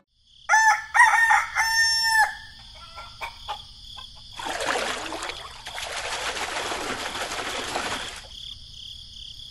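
A rooster crowing once, a cock-a-doodle-doo of about two seconds starting half a second in, over a steady high-pitched background chirring. A few seconds later comes a stretch of hissing, rustling noise lasting about four seconds.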